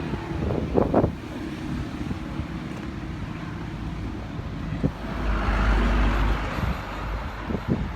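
Road traffic noise with a vehicle passing, loudest from about five to seven seconds in, with wind on the microphone and a few short knocks.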